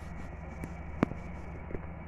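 Steady low background hum, with one sharp click about a second in.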